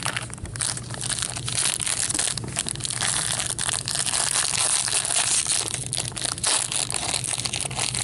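Plastic wrapping on a box of hockey trading cards being torn open and crumpled by hand, a dense crackling crinkle throughout.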